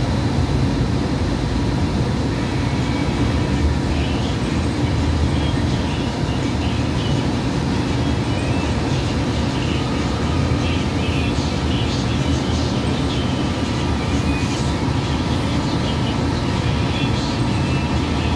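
Hudson-Bergen Light Rail car running at speed, heard from inside the cabin: a steady rumble of wheels on the rails with a faint steady whine.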